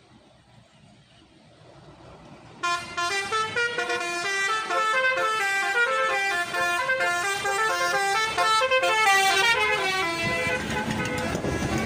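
Indonesian bus 'telolet' horn, a set of multi-tone horns, playing a fast melody of short stepping notes that starts suddenly about two and a half seconds in. A low rumble grows underneath near the end.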